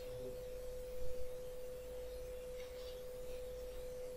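A steady single-pitched whine that never changes, over a low hum, with a brief soft bump about a second in.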